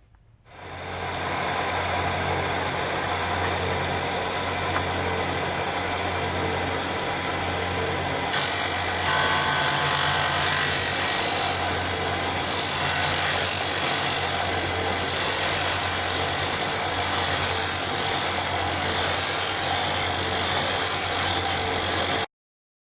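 Charnwood BD15 belt and disc sander's 250-watt motor starting up and running steadily with a hum and a broad hiss of the moving belt and disc. About eight seconds in a louder, brighter hiss joins, and the sound cuts off suddenly near the end.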